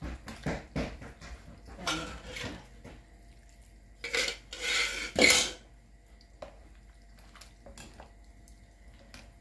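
Wooden and metal spoons knocking and scraping against a glass bowl as a wet ceviche is mixed. About four seconds in, salt is shaken in from a glass shaker, a loud rattly hiss lasting over a second, followed by quieter stirring clicks.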